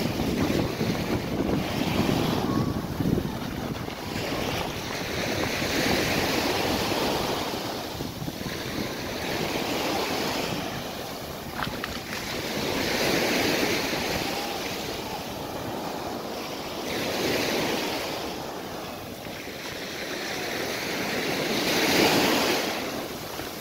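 Sea waves breaking on a beach, the surf swelling and washing in every few seconds, with some wind on the microphone.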